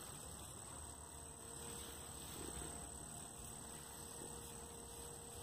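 Quiet background with a faint steady hum and hiss; no distinct event stands out.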